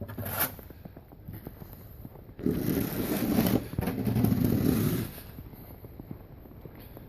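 Rough scraping noise: a brief one at the start, then two longer stretches of about a second each beginning a little over two seconds in.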